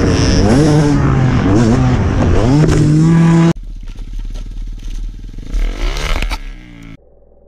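Dirt bike engine revving up and down loudly, its pitch rising and falling with the throttle. A cut about three and a half seconds in brings a quieter dirt bike engine, which revs up sharply near the end.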